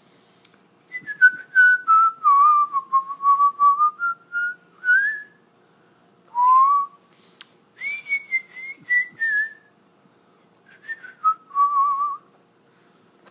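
A person whistling through the lips, a wandering tune in three phrases with short pauses between; the first phrase starts high, sinks and climbs again.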